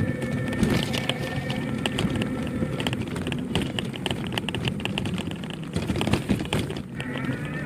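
Rickshaw rattling and clicking continuously as it rolls along a wet road, over a steady low rumble and a faint, steady high whine.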